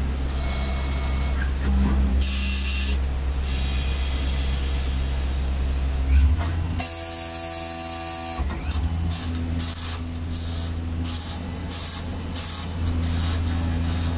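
Tornos Swiss GT 32 CNC lathe turning a brass part: a steady low motor hum with a hiss from the cutting that comes and goes. The hiss is loudest from about seven to eight and a half seconds in, then breaks into a run of short bursts.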